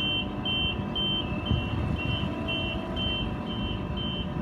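Electronic warning beeper repeating a short, high, two-tone beep about twice a second, like a vehicle's reversing alarm, over a low rumble of engines and traffic.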